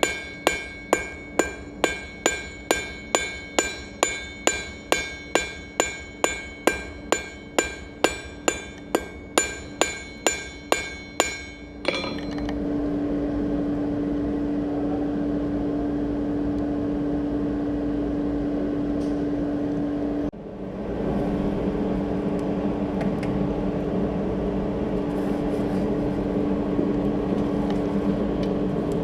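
Hand hammer striking hot steel on an anvil in a steady rhythm, a little over two blows a second, each blow ringing. The hammering stops about twelve seconds in and a steady drone with a low hum takes over, breaking off for a moment about eight seconds later before carrying on.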